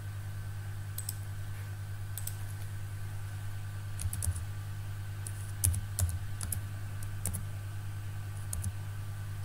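Computer keyboard keys tapped in short, irregular runs as a number is typed in, over a steady low hum.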